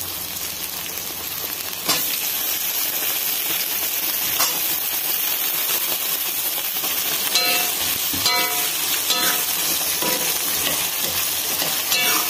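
Raw plantain cubes, shallots and potatoes frying in hot oil in an aluminium kadai, a steady sizzle throughout, with a sharp knock about two seconds in. From about halfway, a steel ladle stirs the vegetables, clinking and scraping against the pan about once a second.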